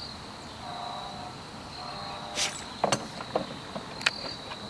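A steady high trill of crickets, broken by a short rustle and a few sharp clicks about three and four seconds in.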